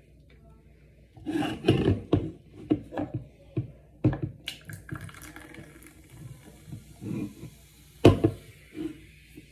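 A can of carbonated G Fuel energy drink poured into a small metal cup: splashing and a few clinks, then a faint steady fizz of bubbles. About eight seconds in comes one sharp knock as the can is set down on the counter.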